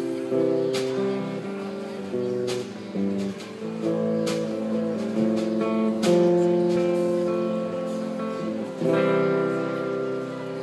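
Acoustic guitar strummed chords played live in an instrumental passage, with no singing.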